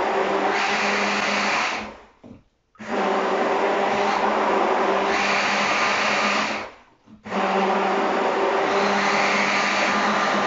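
Hand-held stick blender running in a beaker of protein shake, a steady motor whine. It is switched off briefly twice, about two seconds in and about seven seconds in, and started again each time.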